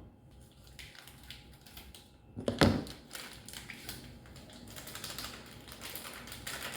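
Light clicks and taps of kitchen utensils and cookware being handled, with one louder clatter about two and a half seconds in.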